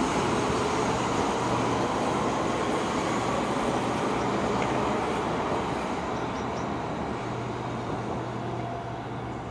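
London Underground 1992 Stock Central Line train running away from the platform after departing, its wheel and motor rumble fading steadily as it recedes.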